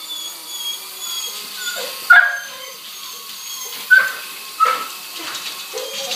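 A dog gives three sharp yelping barks, about two, four and four and a half seconds in. Under them runs the steady high whine of a Blade 120 micro RC helicopter in flight.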